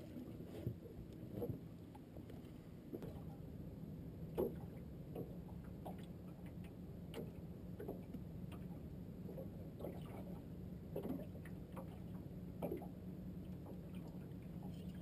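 Small fishing boat sitting on the water: a steady low hum with light, irregular knocks and taps against the hull and gear, roughly one a second.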